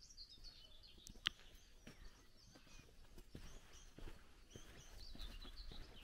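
Faint birdsong with scattered high chirps, over soft footsteps and rustles on an overgrown forest path; a sharp click stands out about a second in.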